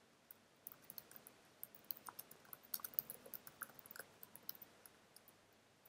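Faint, irregular keystrokes of typing on a computer keyboard, busiest in the middle.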